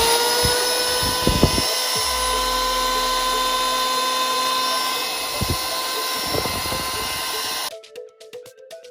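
Maktec MT192 electric hand planer running at full speed with a steady high-pitched whine, then cutting off abruptly near the end, followed by background music.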